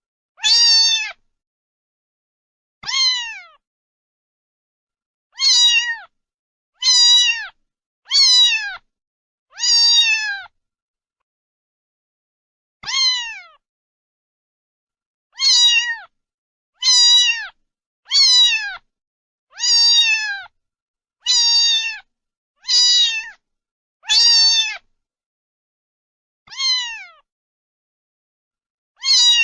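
A domestic cat meowing again and again, about sixteen short meows, each falling in pitch, with dead silence between them. The meows are nearly identical to one another.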